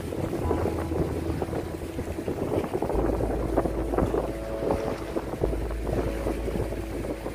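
Background music with held tones and a deep bass line that changes note every few seconds, with wind buffeting the microphone.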